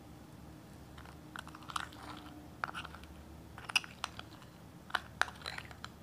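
Metal spoon scraping thick whipped coffee paste out of a glass bowl and clinking against the bowl and a ceramic mug: a run of small scrapes and clicks, the sharpest ones near the end.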